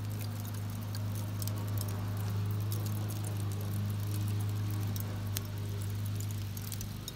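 Burning lump charcoal crackling and ticking with scattered sharp pops, over a steady low hum.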